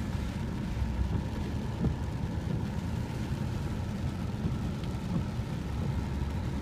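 Steady low rumble of a vehicle's engine and tyres heard from inside its cabin as it rolls slowly along a wet road.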